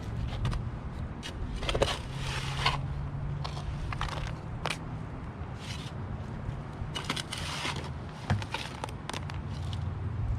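Scattered scraping, crunching and clicking noises over a steady low hum, with a sharp knock about eight seconds in.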